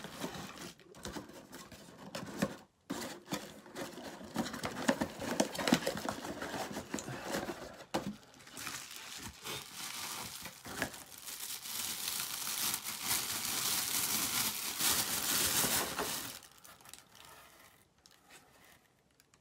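Plastic bubble wrap crinkling and crackling as it is handled and pulled off a camera lens. From about halfway the rustling turns louder and steadier as the wrap is slid off, then it dies down a few seconds before the end.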